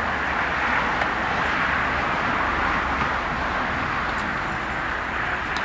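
Steady outdoor background noise, an even rushing hiss much like distant road traffic, with a few faint clicks.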